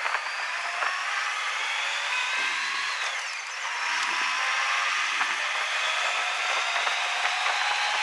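Honda Gold Wing trike's engine pulling away under acceleration, its whine rising steadily in pitch. The pitch drops at a gear change about three and a half seconds in, then climbs again until another shift near the end.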